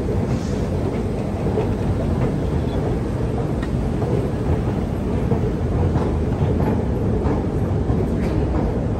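Steady low rumble of an underground railway station heard while riding a moving escalator, with a few faint scattered clicks.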